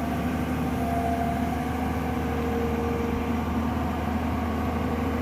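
Heavy diesel engine running steadily at an even, idle-like pace, with a constant low hum and no change in speed.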